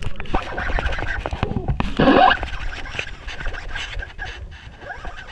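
Close handling noise: hands and clothing rubbing and scraping against the camera while a baitcasting reel is cranked, with a faint steady whir under a run of small clicks and one louder scrape about two seconds in.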